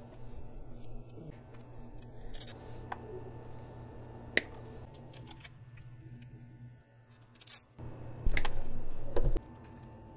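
Close hand work on fuel injector connector clips: red twist ties being looped and twisted around the clips, heard as scattered small clicks and rustles, with a louder clatter about eight seconds in. A steady low hum runs underneath.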